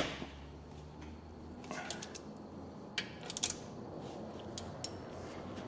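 Scattered light metallic clicks and clinks of a socket and bar on the bolts as they are checked for tightness, a few short knocks over several seconds.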